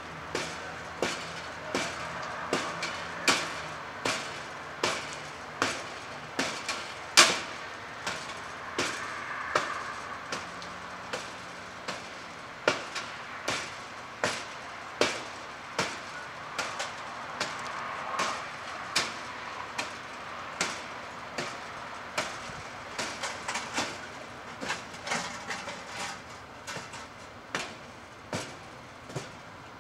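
Repeated sharp knocks and blows, irregular at about one or two a second, of a firefighter's hand tool striking and breaking up a burned wooden deck, opening it up to make sure the fire is out. A steady background noise runs under the blows.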